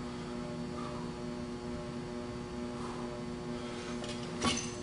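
Steady electrical hum of several fixed tones over faint room noise, with one short knock near the end.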